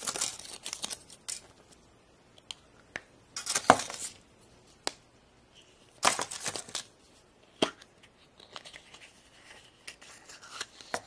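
Foil wrapper on a chocolate surprise egg crinkling and tearing in short bursts, with a few sharp clicks and snaps as the plastic toy capsule inside is handled and pulled open.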